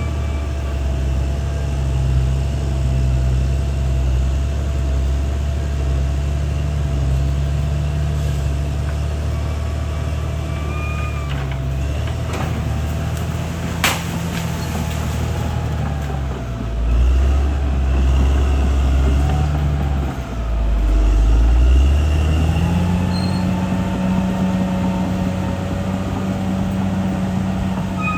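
Caterpillar D6R XL bulldozer's diesel engine running steadily under load. Its pitch sags and then climbs to a higher, steady note in the second half, over faint high whining tones. A single sharp clank comes about halfway through.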